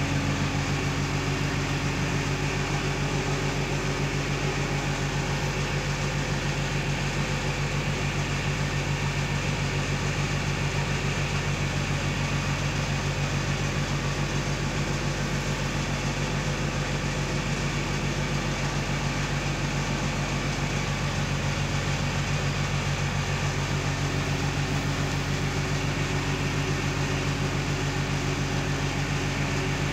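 Steady low machine hum, unchanging in pitch and level.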